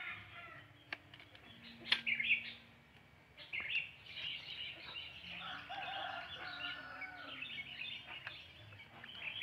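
Birds chirping and calling in the background, in short scattered phrases, with a single sharp click about two seconds in.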